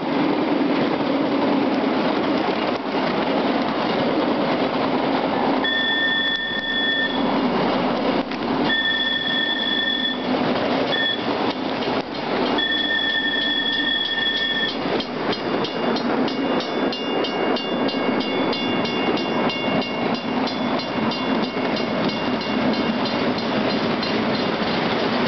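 Ride-on miniature club train rolling along its track with a steady running rumble. A few seconds in, a high whistle sounds four blasts, long, long, short and long, the grade-crossing signal. After that the wheels set up a fast, regular clicking over the rail joints, with a faint high squeal.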